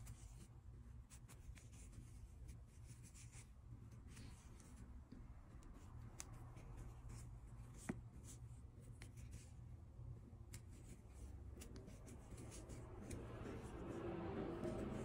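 Faint scratching and rubbing of a metal crochet hook drawing thin yarn through stitches, with scattered light ticks and one sharper click about eight seconds in, over a low steady hum.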